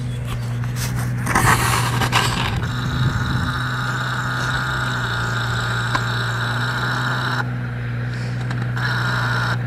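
Diesel engine of a cable-laying tractor running steadily. About a second in there is a burst of scraping and clattering, and a steady high whine sets in, drops out near the end and comes back briefly.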